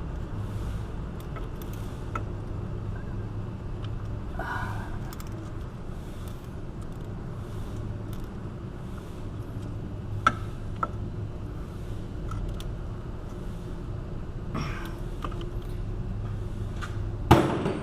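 Socket wrench working on a wheel hub's mounting bolts: scattered light metallic clicks over a steady low hum, with one sharp metal clank near the end.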